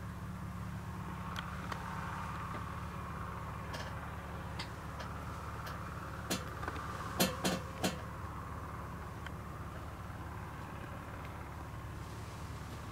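A steady low outdoor rumble, with a scattering of sharp clicks and knocks. The loudest are three quick ones about seven to eight seconds in.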